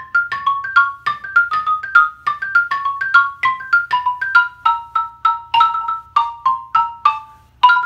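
Xylophone played with mallets: a quick run of single struck notes, about three a second, in an embellished, syncopated melody line, with a brief pause near the end.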